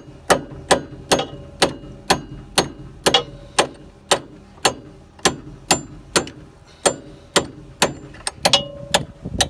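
Hammer striking a steel punch at about two blows a second, each blow a sharp metallic clank with a short ring. The punch is driving a pin out of the SafeCut hub on a Krone mower conditioner's cutter bar.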